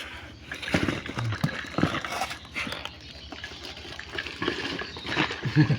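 A parcel being handled: irregular knocks and rustling, with a few short faint vocal sounds in the background.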